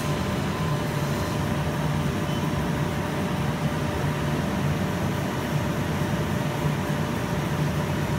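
Large Ernault Somua CNC lathe running, a steady machine hum with a low drone and a couple of faint steady tones, while its cross-slide (X axis) traverses under control.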